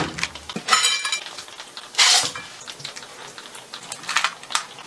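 Kitchenware and food being handled: a few separate clinks and clatters of a tray and plate. There is a ringing clink about a second in and a short scraping burst about two seconds in.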